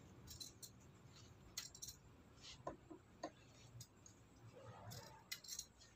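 Faint, irregular snips of large scissors cutting through stiff buckram, a short click each time the blades close.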